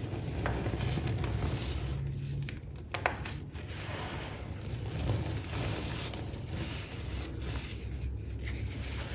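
Loose baking soda powder being pressed and rubbed by hand, a steady soft crunching and scraping, with one sharp crack about three seconds in.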